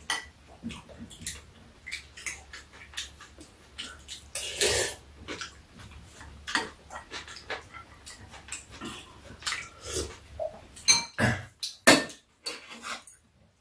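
Eating sounds: slurping and chewing of bean sprout soup, with spoons and chopsticks clicking irregularly against bowls. A few sharper clicks come near the end.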